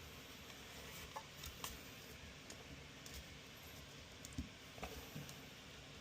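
Faint, scattered small clicks and light taps of hands handling a graphics card and its screw-on metal bracket, about six or seven in all over a quiet background.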